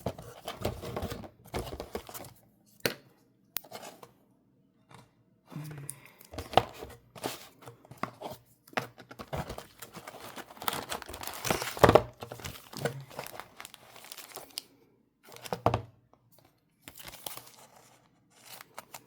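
Packaging being handled, crinkled and torn open in irregular bursts, with sharp clicks and short pauses; the loudest tearing comes about twelve seconds in.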